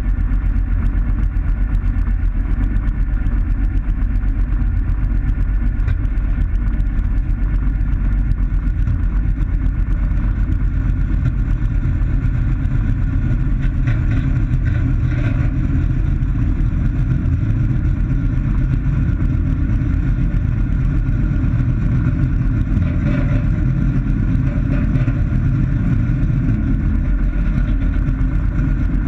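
Light aircraft's piston engine and propeller running steadily at low taxi power, heard from inside the cockpit while the plane taxis.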